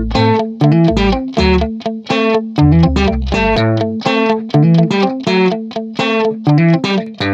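Background music: plucked guitar notes in a steady rhythm, about three a second, over a bass line that drops out about halfway through.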